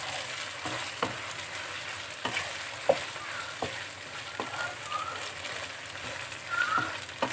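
Marinated chicken pieces sizzling in hot oil as they are stirred in the pan, with the stirring utensil knocking and scraping against the pan about once or twice a second; the sharpest knock comes a little under three seconds in.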